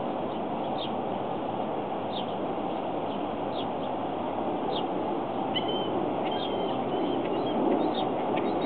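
Small birds chirping: a short high chirp repeated every second or so, then a cluster of more varied calls in the second half. Under them runs a steady background rumble.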